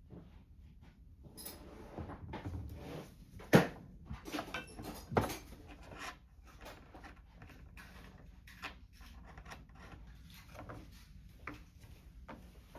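Small parts and tools being handled and set down on a workbench: scattered clicks, knocks and rattles. The loudest is a sharp knock about three and a half seconds in, with another near five seconds.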